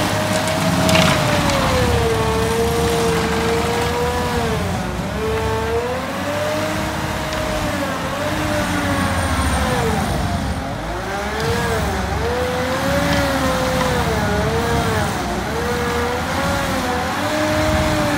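Stump grinder attachment on a Cat 308 E2 CR mini excavator grinding out a stump, over the excavator's diesel running at high revs. The grinder's whine keeps sagging in pitch as the cutter bites into the wood and climbing back as it frees up.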